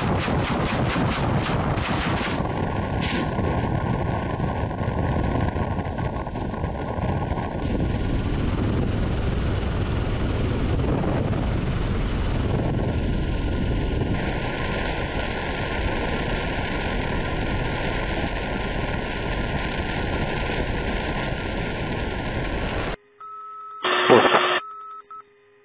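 Ka-52 helicopter firing unguided rockets from its wing pod in a rapid salvo, about four sharp shots a second for two seconds, over the steady noise of its coaxial rotors and turboshaft engines. The flight noise runs on evenly. Near the end it cuts off abruptly to cockpit electronic tones with one short loud blip.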